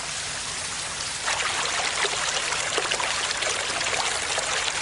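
A small stream trickling and splashing, growing louder about a second in.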